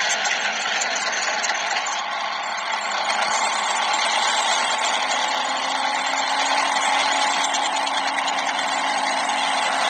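An engine running steadily at idle, with a low steady hum joining about halfway through.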